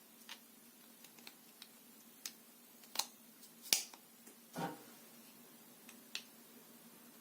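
Scattered light clicks and taps of small hard objects being handled, about a dozen irregular strokes, the sharpest two just past three seconds and near four seconds in, with one duller knock about four and a half seconds in.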